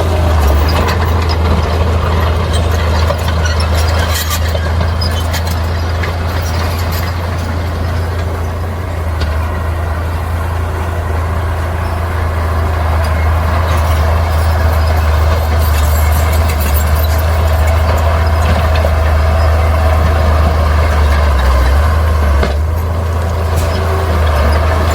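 Heavy earthmoving machinery at work: a diesel engine running with a steady low drone, with scattered short clanks and clicks over it.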